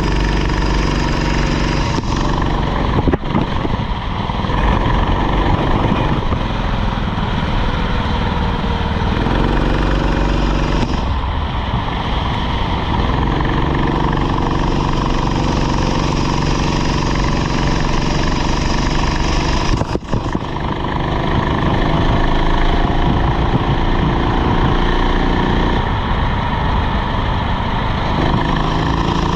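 Rental go-kart engine running hard, its pitch climbing and falling back again and again as the kart accelerates and lifts off, with a brief knock about three seconds in and another about twenty seconds in.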